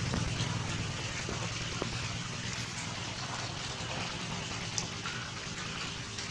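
Steady noise of water in a shallow, rocky stream, with a few small drips and patters scattered through it.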